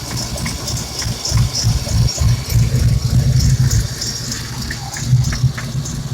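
SVO 351 small-block Ford V8 idling with an uneven pulsing beat and a high hiss over it. The owner takes the whine heard from this engine for a vacuum leak at the back of the intake, where it meets the heads.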